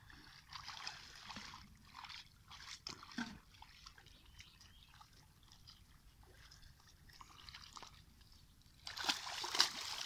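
Shallow, muddy pond water splashing and sloshing as a straw broom is swept through it at the water's edge, in scattered short splashes. Near the end the wet splashing gets louder and denser as a cast net is dragged up out of the mud.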